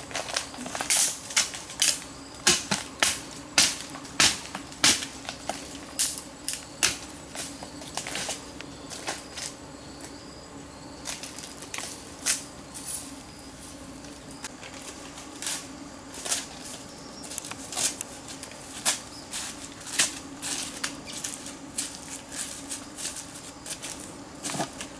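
Footsteps crunching through dry leaves, twigs and forest undergrowth: irregular sharp crackles and snaps, about one or two a second, thickest in the first few seconds, over a steady low hum.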